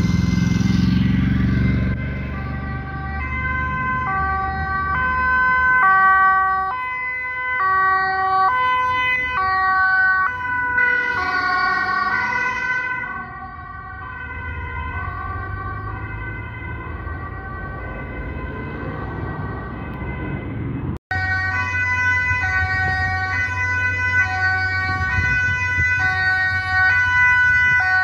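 Ambulance two-tone siren sounding on an urgent run, stepping back and forth between a high and a low note about every half second, over road traffic noise. It drops out for an instant at a cut about 21 seconds in, then carries on.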